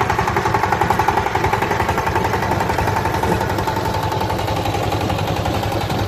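Single-cylinder diesel engine of a two-wheel walking tractor running steadily under load with a rapid, even beat, driving a rotavator that tills the soil.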